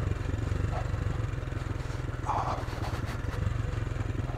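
AJP PR7's single-cylinder engine running steadily under way, its firing pulses even, with a brief scrape about halfway through.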